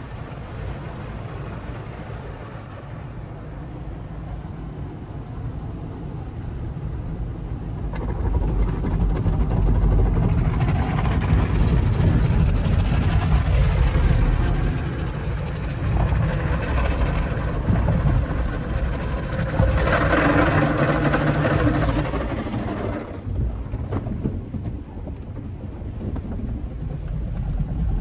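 Automatic car wash tunnel heard from inside the car: water spray and spinning cloth brushes washing over the body. It grows louder about eight seconds in, is heaviest near the two-thirds mark, then eases off.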